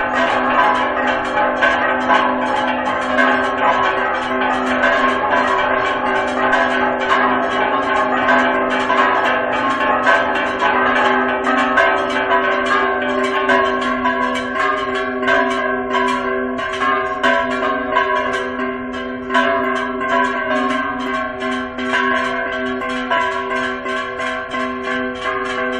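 Mexican church bells ringing a fast repique, several bells struck rapidly over one another, the third call to mass.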